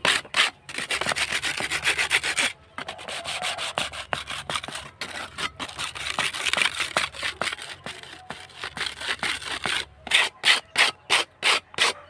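Steel putty blade's edge rubbed back and forth on a brick in quick scraping strokes, with slower, louder strokes near the end. The sharp edge is being ground down so it won't cut the hand while applying putty.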